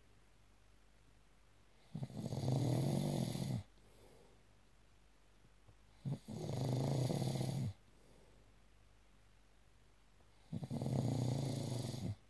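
Sleeper snoring in a steady rhythm: three long snores of about a second and a half each, one every four seconds or so, with quiet between.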